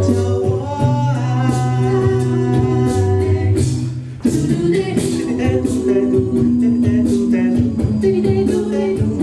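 Choir singing a pop song in harmony, with held chords over a low bass line. The sound dips briefly about four seconds in, then the voices come straight back in.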